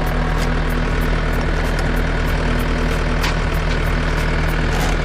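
Engine idling steadily, with a light regular ticking about four times a second.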